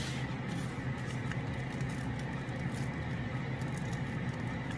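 Dry papery tomatillo husk being peeled by hand: a faint, irregular crinkling rustle over a steady low hum.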